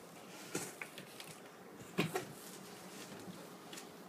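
A few light clicks and knocks of packaging and parts being handled during an unboxing, the sharpest knock about two seconds in.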